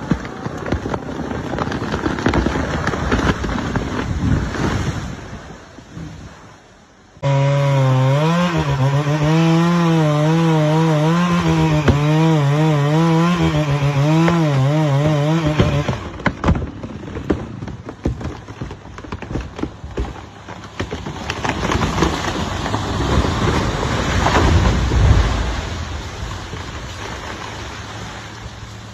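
Chainsaw cutting into a big tree, in several abruptly edited segments. In the middle stretch the saw runs at high revs with its pitch wavering up and down as it works the cut; before and after it is rougher and noisier, with a louder swell of noise near the end.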